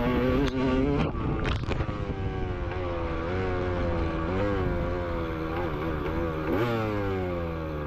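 Motocross motorcycle engines racing on the track, revving up and falling off again and again as the riders work through the gears.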